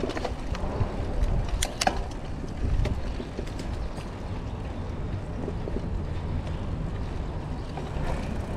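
Mountain bike rolling along a dirt trail, heard from a handlebar-mounted camera: steady wind rumble on the microphone over tyre noise, with a few sharp rattles from the bike about two seconds in.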